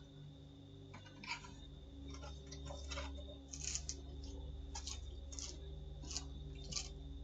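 Faint steady electrical hum with a thin high whine, the self-noise of a doorbell camera's microphone, with light irregular ticks and clicks about every half second.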